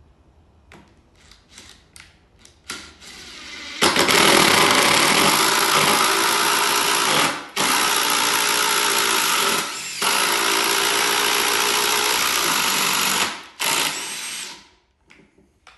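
Electric drill mounted in a drill stand, boring into green oak: a few handling knocks, then the motor runs under load about four seconds in with two brief breaks, and it winds down about ten seconds later.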